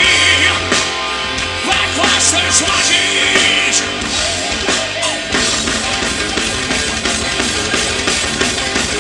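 Live rock band playing through a PA: electric guitars, bass guitar and a drum kit, with a held low note that gives way to a new part about five seconds in.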